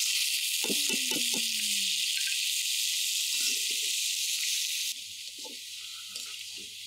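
Washed, drained polao rice sizzling as it goes into hot oil in a wok and is stirred. A steady hiss that drops abruptly to a quieter hiss about five seconds in.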